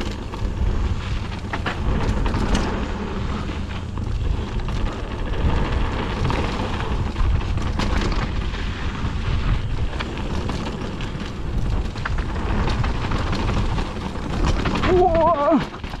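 Wind rushing over the camera microphone and mountain bike tyres crunching over dirt and loose gravel at speed, with the bike rattling over bumps and berms. A brief wavering squeal near the end.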